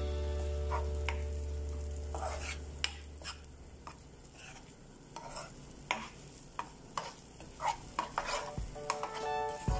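Wooden spatula stirring and scraping a tuna and egg mixture around a frying pan: a string of short, irregular scrapes against the pan over a light sizzle of frying.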